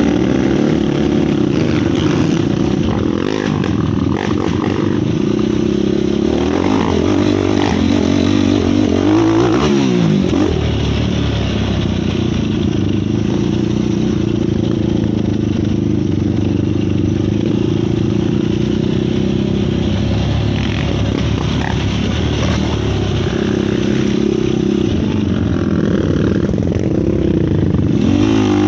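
Yamaha YFZ450 quad's single-cylinder four-stroke engine running close to the microphone, mostly at a steady speed, with quick revs up and down about nine to ten seconds in and again near the end.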